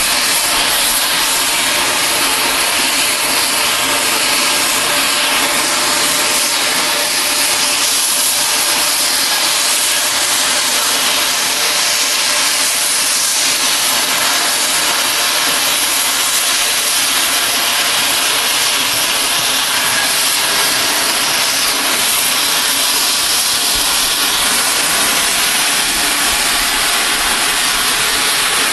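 Oxy-fuel cutting torch hissing steadily as it flame-cuts a steel railroad rail.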